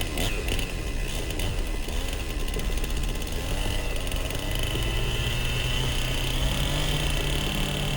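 Two-stroke chainsaw engine running steadily; its tone firms up and grows a little stronger about halfway through.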